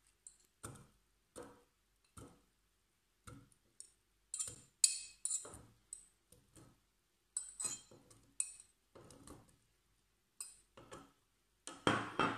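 A metal fork clinking and scraping on a porcelain dish as halved strawberries are pushed off it into a plastic blender cup: a string of light, irregular clinks and soft knocks.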